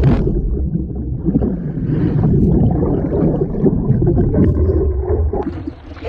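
Muffled underwater rumble and churning of turbulent whitewater around a GoPro held under the surface. Near the end the camera breaks the surface and the sound turns brighter, with open-air splashing and water hiss.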